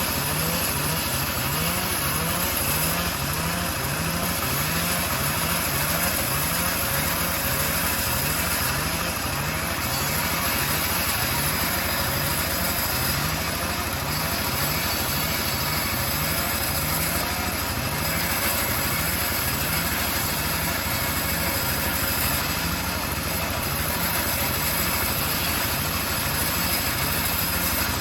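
The engine of a homemade bandsaw sawmill running steadily, with a regular low pulse underneath.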